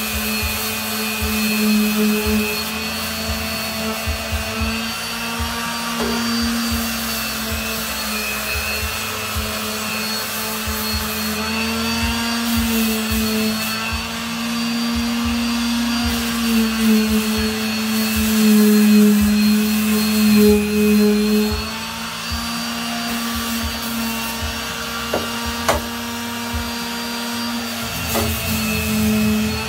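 Electric power sander running steadily, grinding rust off a steel truck step rail; its motor hum wavers slightly in pitch as pressure on it changes.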